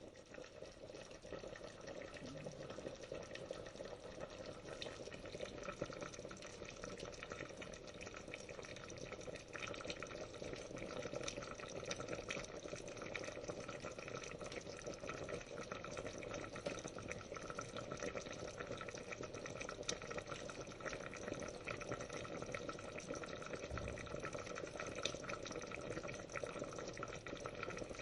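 Water boiling in a pot: a steady bubbling with many small pops.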